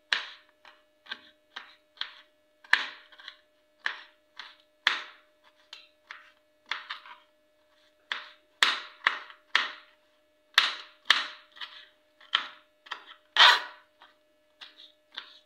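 Kitchen knife chopping jalapeño slices on a plastic cutting board: a run of sharp knocks on the board, about two a second, with a brief pause about halfway through.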